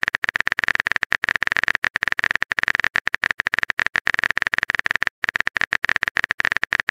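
Rapid, even phone-keyboard typing clicks, the typing sound effect of a texting-story chat, with one short break about five seconds in.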